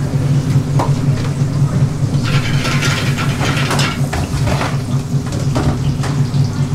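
Busy restaurant kitchen ambience: a steady low drone from the kitchen's extraction and cooking equipment, with scattered clatter from about two to five seconds in.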